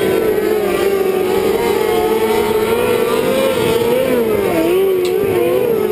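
Several winged outlaw karts running together on a dirt oval. Their engines overlap, each pitch wavering up and down as the drivers ease off and get back on the throttle through the turn.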